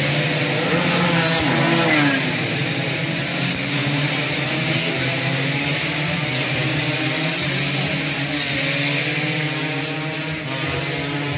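Suzuki Satria two-stroke race motorcycles revving hard around the circuit, several engines heard at once, their pitch rising and falling with throttle and gear changes.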